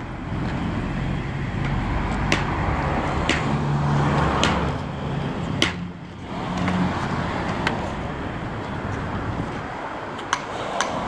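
Road traffic going by: steady car noise with an engine hum that swells in the middle and fades. Scattered sharp clicks sound over it, a few of them close together near the end.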